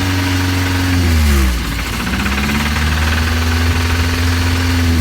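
Nissan Hardbody pickup engine revved and held, with rod knock. The revs drop about a second and a half in, then climb again and hold. The knock comes from a failing connecting-rod bearing.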